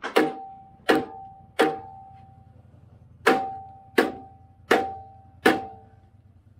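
Hammer blows on the steel cutter wheel of a Vermeer 222 stump grinder, knocking the old finger teeth loose: seven sharp strikes, three, a short pause, then four, each leaving the wheel ringing briefly.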